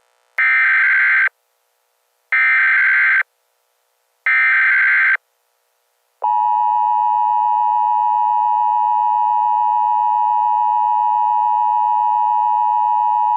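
Emergency Alert System broadcast tones: three short bursts of digital header data, each just under a second long and about a second apart. About six seconds in, the steady, unbroken two-tone EAS attention signal starts.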